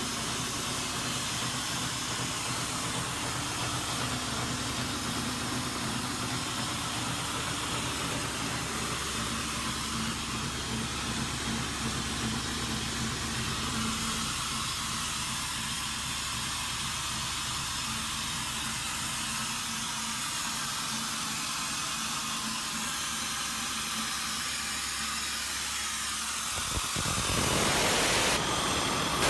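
Engine-driven oil-free air compressor on a cement tanker running steadily, a low hum under a strong hiss of air, pressurising the tank to blow the cement out. Near the end the hum cuts off suddenly and a louder, steady rush of air takes over.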